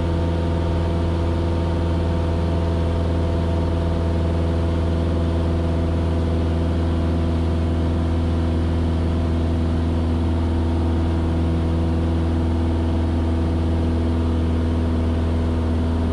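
Cessna 172S's four-cylinder Lycoming engine and propeller droning steadily at climb power, heard inside the cabin.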